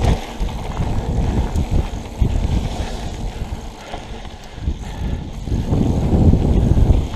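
Mountain bike riding fast down a gravel single track: tyre rumble on the dirt and wind on the microphone, with small knocks and rattles from the bike. It eases off in the middle and builds again near the end.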